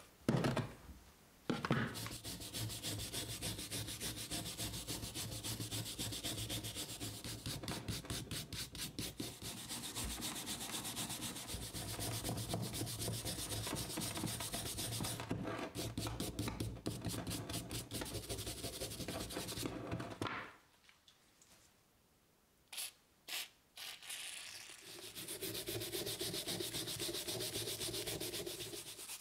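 A hand wire brush scrubs rust off a steel hammer head in fast back-and-forth strokes. It stops about two-thirds of the way in; after a short quiet spell with two knocks, brushing starts again on the head, now wet with liquid.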